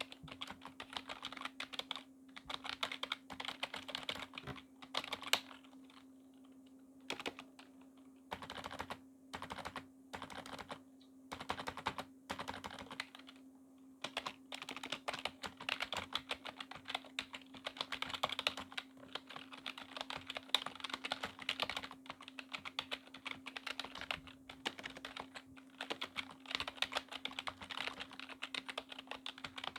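Typing on a Corsair K55 membrane keyboard: rapid, irregular key clicks in runs with a few short pauses, over a faint steady hum.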